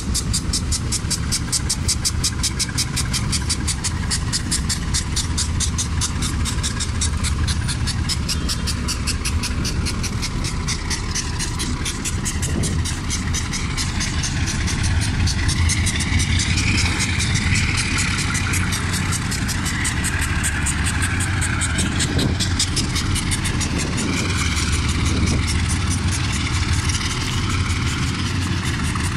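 Diesel locomotive engine running with a steady low hum as the locomotive moves off slowly along the track, with a fast, even ticking sounding above it.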